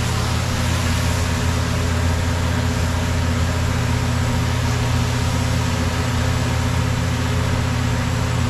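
A large pot of curry stew chicken boiling hard on the stove, a steady hiss of bubbling under a steady low mechanical hum.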